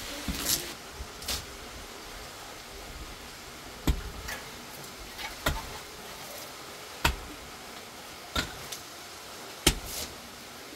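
Pickaxe striking into hard, stony dirt in a steady digging rhythm, a sharp blow about every second and a half.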